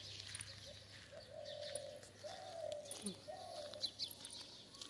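Faint dove cooing, a string of low notes about a second apart, with small birds chirping thinly above.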